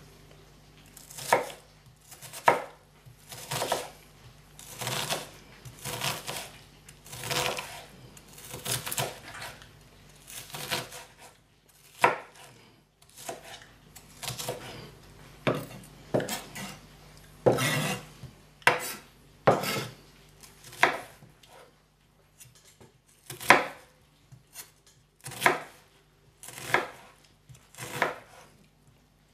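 Kitchen knife slicing an onion on a wooden cutting board, one unhurried cut about every second, with a brief pause about two-thirds of the way through.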